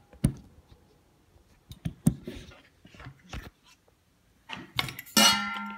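Scattered clicks and light knocks of a knife and cardboard packaging being handled, with a short steady pitched sound near the end.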